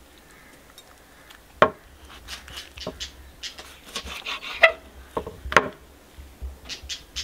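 Kitchen knife slicing fat off a raw beef heart on a wooden cutting board. A few sharp knocks of the blade and hands on the board, with quieter scraping and slicing between them.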